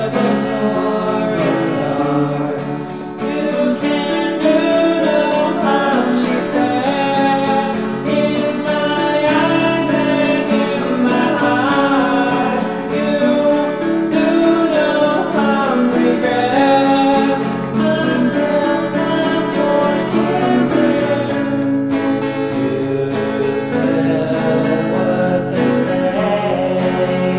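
Music: a song with a voice singing over guitar.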